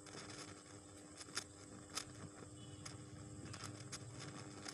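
Quiet room tone in a pause: a faint steady hum, with a few soft clicks and rustles, the clearest about a second and a half and two seconds in.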